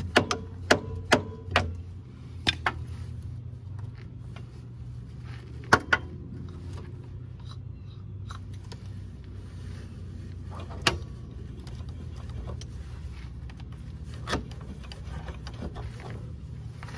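Sharp metallic clinks and knocks as a Kawasaki Mule 3010's front CV axle shaft is worked and pushed out through the front hub and drum-brake backing plate: a quick run of about five at first, then a few scattered ones, over a steady low hum.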